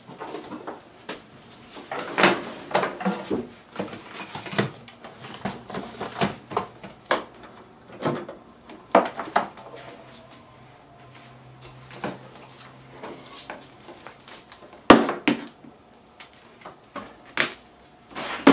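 Kitchen handling noises: scattered knocks, clicks and clatter of things being moved, set down and opened, like cupboards and drawers. A low steady hum runs for a few seconds in the middle, and one sharp knock about fifteen seconds in is the loudest.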